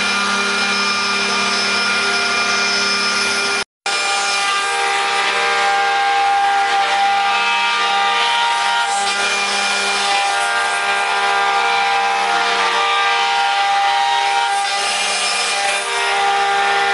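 Multi-spindle CNC wood router running, its spindles whining steadily over the hiss of the bits cutting into the wooden statue blanks. The sound cuts out for a moment a little before four seconds in, then carries on.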